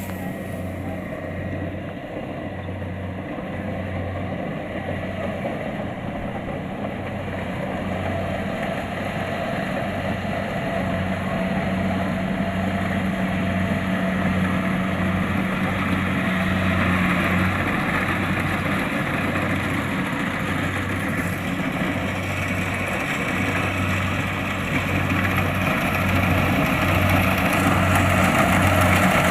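Kubota DC-70 Plus combine harvester's diesel engine and threshing machinery running steadily under load, with a low rhythmic throb. It grows gradually louder toward the end.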